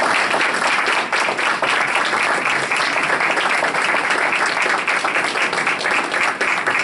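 Applause from a roomful of people, many hands clapping steadily.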